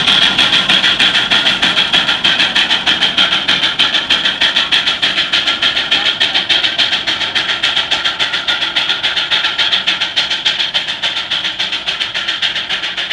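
A 75 hp Case steam traction engine working under load pulling an eight-bottom plow: a quick, even beat of exhaust chuffs that slowly grows fainter as the engine moves away.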